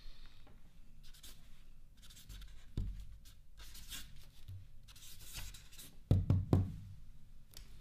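Felt-tip marker scratching across a paper card in quick irregular strokes as a signature is written. There are a few dull knocks against the wooden table, the loudest a little after six seconds in.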